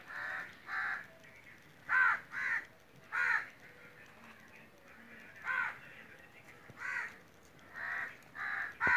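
Crows cawing: about ten short caws with gaps of a second or so between them, some coming in quick pairs.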